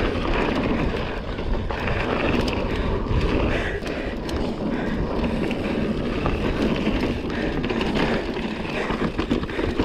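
Mountain bike ridden fast down a dirt trail: tyres rolling on the dirt and the bike rattling, with occasional knocks from hitting drops. Wind buffets the microphone with a steady low rumble.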